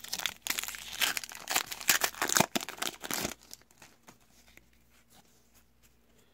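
Trading card pack wrapper crinkling and tearing as it is ripped open, for about three seconds. After that only a few faint ticks as the cards are handled.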